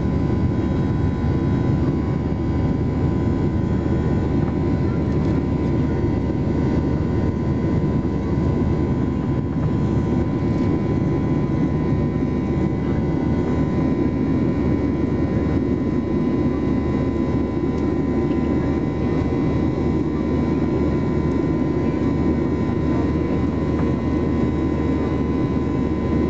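Cabin noise of a Boeing 737-800 climbing after takeoff, heard from a seat over the wing. Its CFM56-7B turbofan engines give a steady deep rush of air and engine noise with a thin, even whine of several tones above it. The sound holds constant, with no change in thrust.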